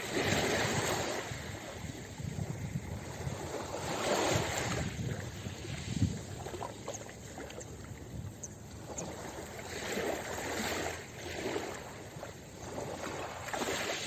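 Small sea waves lapping onto a pebble beach, a swell of surf washing in every few seconds, with one sharper slap about six seconds in.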